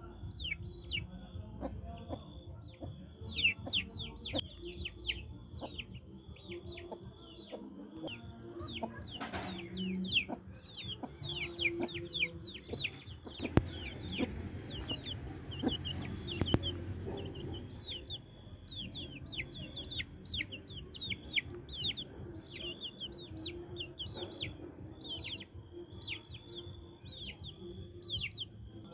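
A brood of young chicks peeping constantly in short, quick, falling chirps, with their broody mother hen clucking low beneath them.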